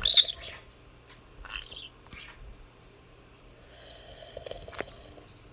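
A pet's short, breathy snorting and gulping noises, its imitation of someone drinking. There is a sharp loud burst at the start, then a few brief breathy sounds.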